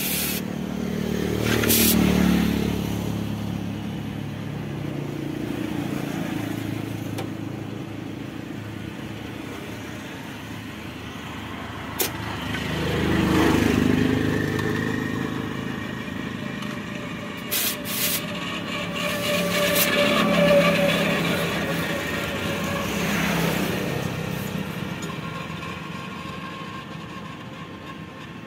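Motor vehicles passing one after another: the engine and tyre sound swells and fades four times, with a bending pitch as each goes by. A few sharp clicks fall in between.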